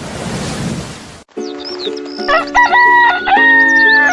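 A rooster crowing: one long call beginning about two seconds in, held and then falling away at the end, over steady background music with small bird chirps. Before it, a hiss of outdoor noise cuts off abruptly about a second in.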